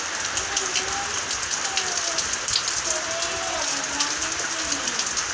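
Steady light rain falling on the ground and roof, an even hiss with many small drop ticks.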